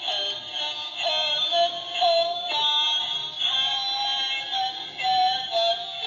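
Simple electronic tune of held notes, played through the small speaker of a battery-powered turtle-shaped duck fishing game toy.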